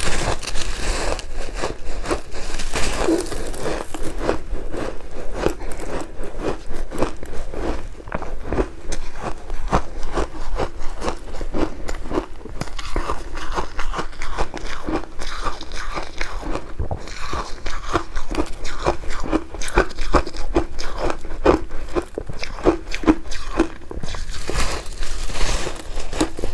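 Ice with syrup being bitten and chewed close to the microphone: a steady run of sharp, brittle crunches, several a second.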